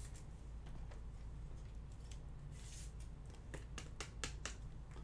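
Faint handling noise of trading cards and their packaging: a few light clicks and rustles, most of them in a quick run about three and a half to four and a half seconds in, over a low steady hum.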